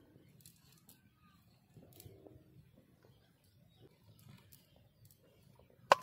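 Faint rustling of a cast net's mesh and the grass beneath it as the net is handled by hand, with a few light clicks scattered through.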